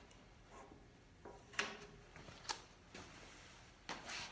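A few light clicks and knocks of hands working on the painted sheet-metal tank, the sharpest about a second and a half in.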